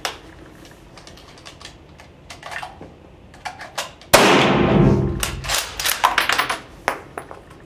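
A Spanish Mauser FR8 rifle fires a single shot about four seconds in, a light load of Trail Boss behind a color-coated lead bullet. The report rings on in the room for about a second. A quick run of metallic clicks and clacks follows as the bolt is worked, with a few faint handling clicks before the shot.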